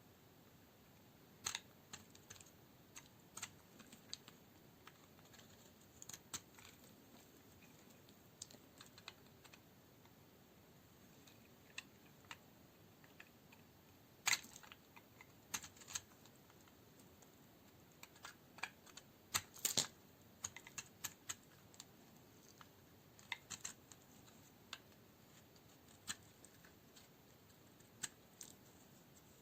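Knife cutting dry Duru coniferous soap into cubes: scattered sharp, crisp cracks and crunches at irregular intervals, the loudest about 14 and 20 seconds in.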